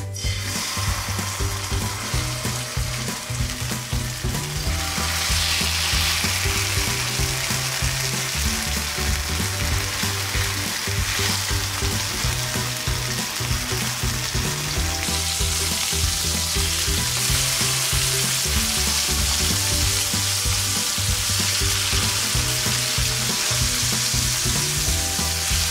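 Mustard- and herb-marinated chicken thighs sizzling in hot oil in a frying pan as they brown, the sizzle growing louder about five seconds in. A quiet bass line of background music runs under it.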